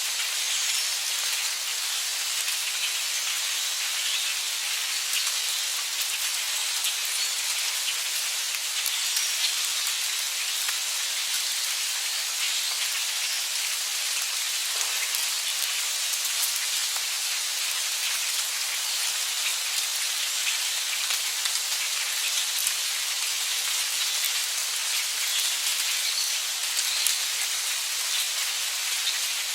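Heavy rain falling steadily, a dense hiss of drops with many small individual drop ticks on top.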